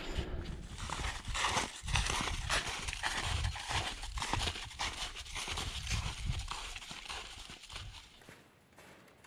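Snowshoe footsteps in soft, wet spring snow, a steady walking rhythm of about two steps a second, fading near the end.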